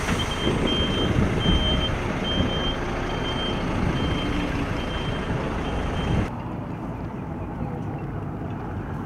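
Truck's reversing alarm beeping steadily, a high single-pitched beep repeating a bit faster than once a second, over a loud low rumble. About six seconds in the sound cuts off abruptly to a much quieter outdoor background.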